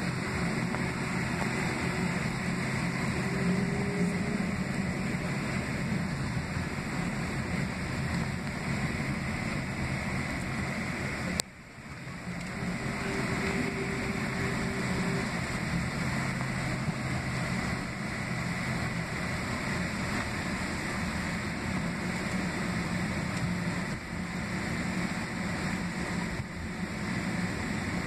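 Steady cabin noise inside a Boeing 767-300ER taxiing, its two General Electric CF6-80C2B6 turbofans running at taxi power: a constant rumble and hum with a few held tones. About halfway through there is a sharp click, and the level dips briefly before the steady noise comes back.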